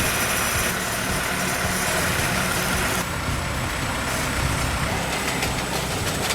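A heavy machine's engine running steadily, with mechanical noise over it; the sound changes character about three seconds in.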